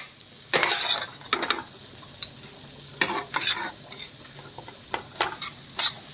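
Chicken chowmein stir-frying over high flame: a metal spatula scraping and tossing noodles in a pan in irregular strokes, over a steady sizzle.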